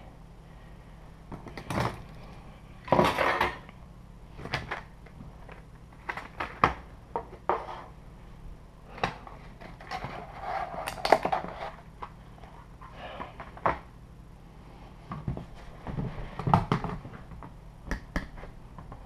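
Hands working the plastic spool holder and frame of a 3D printer kit: irregular clicks, knocks and small rattles of plastic parts being handled and fitted, with the loudest clatter about three seconds in and again about eleven seconds in.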